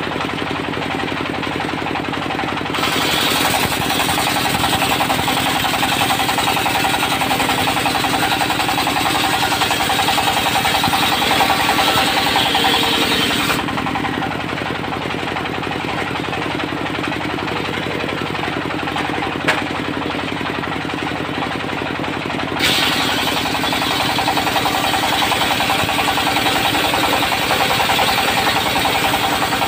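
Diesel engine driving a portable circular sawmill, running steadily with a rapid chugging pulse. Twice the blade cuts into a teak log, adding a loud high-pitched rasping over the engine: the first cut starts about three seconds in and lasts about ten seconds, and the second starts near the two-thirds mark and runs to the end.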